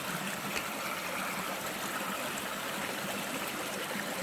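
Creek water flowing steadily over rocks, a continuous even rush.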